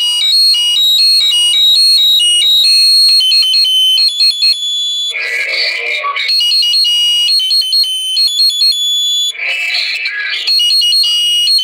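A recorded melody played back through the tiny speaker of an Olympus Note Corder DP-201 voice recorder, thin and tinny, heard as a run of high, steady beeping notes. Two louder, rougher passages break in about five and ten seconds in.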